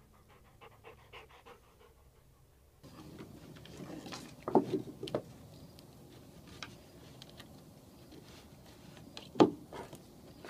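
A black Labrador retriever panting while chewing a stick on a wooden deck, with sharp cracks of the stick: a cluster of three about four and a half seconds in and one more near the end. The first few seconds are faint.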